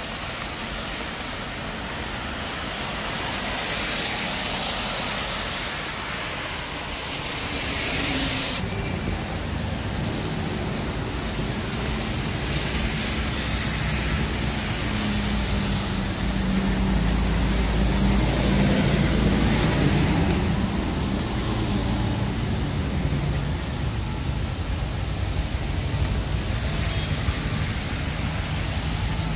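Traffic on a rain-wet street. Tyres hiss on the wet road for the first eight seconds or so, stopping abruptly, then a vehicle's engine hum swells and fades.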